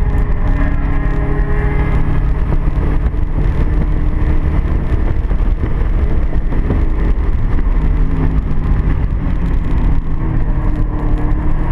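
Car engine driven hard on a race track, heard from inside the car, its pitch climbing and dropping several times as it accelerates and shifts, over loud low road and wind rumble.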